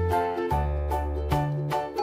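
Light instrumental background music: a melody of short notes over a bass line that changes every half second or so.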